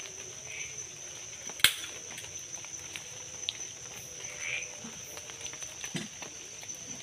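Steady high-pitched drone of night insects in tropical forest. A single sharp snap or knock cuts through it about a second and a half in.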